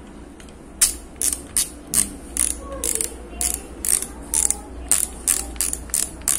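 Clicker-type reel seat on a Relix Nusantara Capung 732 spinning rod, its locking ring turned by hand and ratcheting in a string of sharp clicks, about three a second, starting about a second in.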